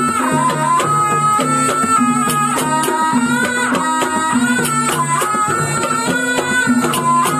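Live ebeg gamelan music: a slompret, the Javanese double-reed shawm, plays a continuous melody that steps up and down over regular drum strokes and low sustained tones.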